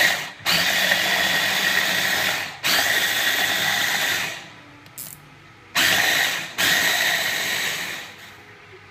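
Hand blender running on its chopper bowl, chopping lemon pulp into a purée. It runs in pulses: two bursts of one to two seconds with a brief break between them, a pause of about a second and a half, then two more bursts.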